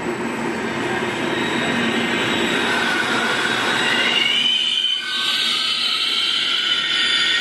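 Vivalto double-deck passenger train rolling past close by, its wheels squealing in several high tones. The squeal climbs in pitch about two to four seconds in and grows louder and steadier after about five seconds, over the rumble of the coaches.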